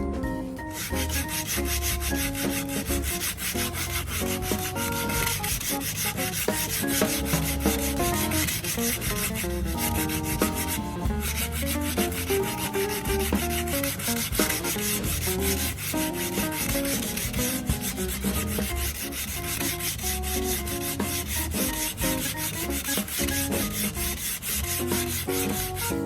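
Sandpaper rubbing back and forth on a soft cedar board in quick, even strokes, with background music under it.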